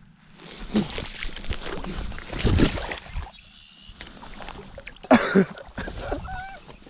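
Water sloshing and splashing at the edge of a pond, mixed with rustling and knocks of close handling, in two bouts. A short wavering call sounds near the end.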